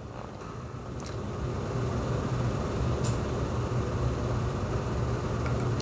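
Steady low hum with a faint background hiss, growing slightly louder over the first couple of seconds, and two faint clicks about one and three seconds in.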